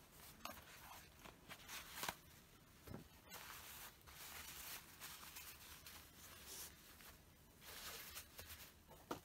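Faint rustling and crumpling of a paper tissue handled and wiped across a tabletop, with a few light knocks, the strongest about two seconds in and near the end.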